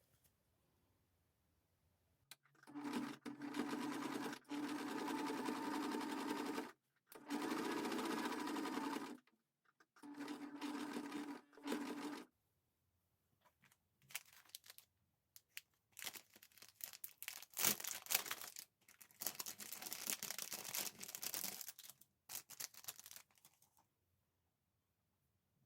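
Electric sewing machine running in three steady stitching runs, each a few seconds long, followed by shorter, uneven bursts of noise.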